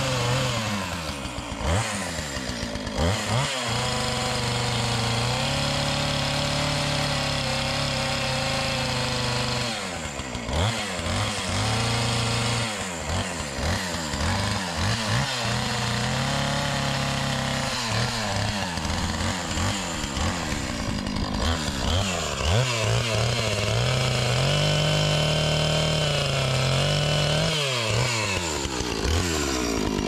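Gas chainsaw cutting into a large pine log. Its engine runs at high speed in long steady stretches, with the pitch falling and climbing back up several times.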